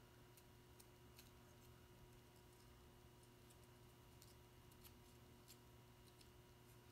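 Near silence: a faint steady room hum with scattered small, soft clicks and crinkles of paper being folded and pressed by hand.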